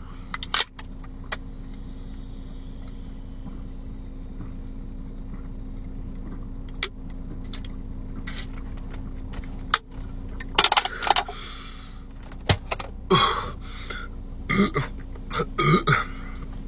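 Steady hum of a car's running engine heard inside the cabin, with a few sharp clicks in the first half. In the second half come several short, loud vocal noises from the man.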